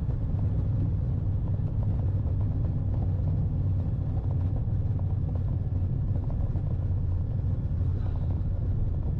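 Steady low drone of a twin-engine aircraft's running engine after landing, an even rumble with no change in pitch.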